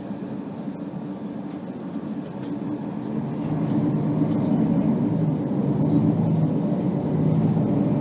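Diesel engine of a Mercedes-Benz Citaro C2 G articulated city bus running steadily, getting louder from about three seconds in as it works harder.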